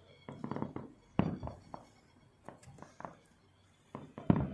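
Distant aerial fireworks bursting: an irregular run of sharp bangs and pops, each with a short echo. The loudest come about a second in and again near the end.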